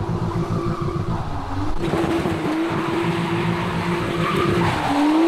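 Nissan Skyline R34 GT-T's turbocharged straight-six held at steady revs while the rear tyres spin and squeal on the wet road. About two seconds in, a loud rush of tyre noise joins the engine note.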